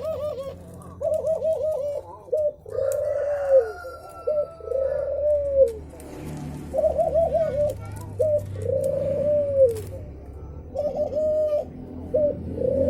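Male brenggolo bird calling to a female with low, dove-like cooing. It repeats a phrase about four times, each a quick stuttering run of short notes followed by a longer arched coo.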